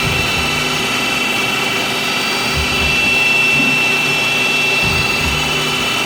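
CNC mill-turn lathe machining a Delrin part: a steady mechanical whine with a high held tone that grows stronger about halfway through, over an uneven low rumble.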